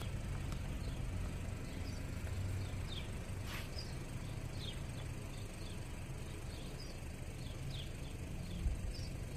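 Small birds chirping outdoors, short falling chirps about one or two a second, over a steady low rumble. One brief scratchy noise sounds about three and a half seconds in.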